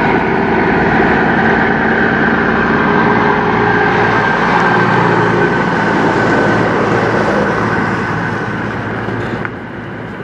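Western Star semi truck's diesel engine and tyres as it comes up pulling a loaded grain trailer, passes close by and pulls away. The sound is loud and steady, then fades over the last couple of seconds as the truck moves off.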